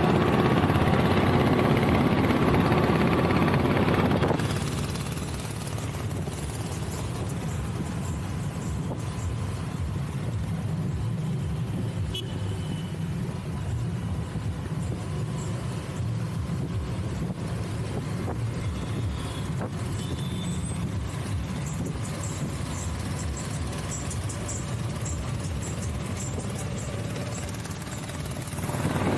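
Road and traffic noise from a moving vehicle: steady wind and tyre rumble that drops suddenly about four seconds in to a quieter low rumble, then swells again near the end.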